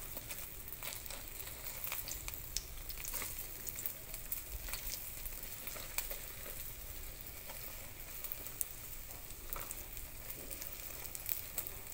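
Hot oil sizzling steadily as pieces of food shallow-fry in an electric hot pot, with sharp crackles and pops here and there.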